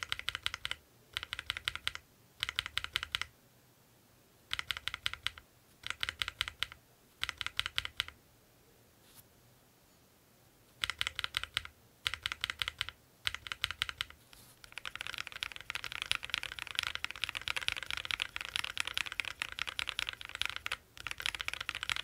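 Mechanical keyboard fitted with Akko Radiant Red linear switches being typed on as a sound test. There are short bursts of rapid keystrokes with brief pauses between them, then from about halfway through a run of continuous fast typing.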